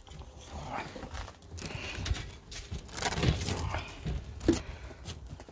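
Irregular knocks and scuffing rustles from a polecat being handled, loudest a little over three seconds in and again about four and a half seconds in.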